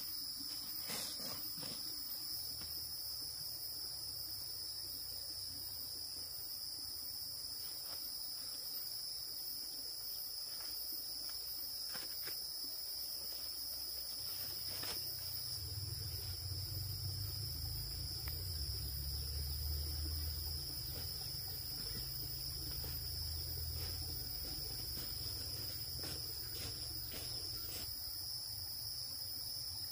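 A steady, shrill insect chorus runs throughout, with a low rumble underneath that swells in the middle and a few faint clicks scattered through.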